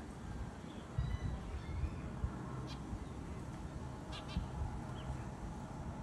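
A few short, high house sparrow chirps in the second half, spaced about a second apart, over a low rumble.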